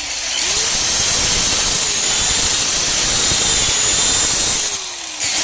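Power drill boring a hole through the basement wall: a steady high motor whine over grinding noise that eases off near the end, followed by a brief loud burst.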